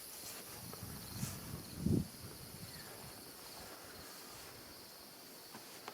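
Steady chorus of crickets and other insects. A single dull low thump about two seconds in.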